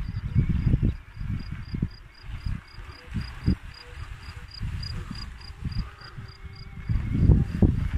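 A meadow insect chirping in an even pulse, about four chirps a second, stopping shortly before the end. Under it, wind gusts rumble on the microphone and grow stronger near the end.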